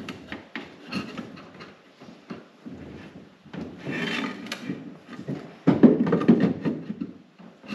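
Wooden frame pieces being handled and fitted: scattered knocks and clicks of wood with scraping and rubbing, a scrape about four seconds in, and a louder run of knocking and rubbing near the end.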